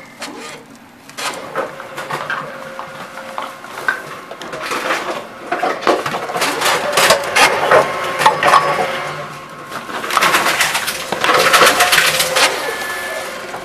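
Plastic bottles being fed into a Tomra T-Series reverse vending machine: crinkling and clattering plastic as each bottle goes into the round intake, with the machine's conveyor whirring as it takes them in. The clatter comes in clusters, heaviest about halfway through and again near the end.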